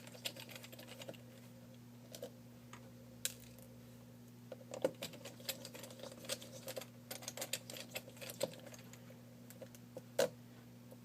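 Small, irregular clicks and taps of a T5 Torx screwdriver turning out the two bottom screws of a BlackBerry Bold 9700 and handling the tiny screws. The clicks come in a busier cluster midway, with one sharper tap near the end, over a faint steady electrical hum.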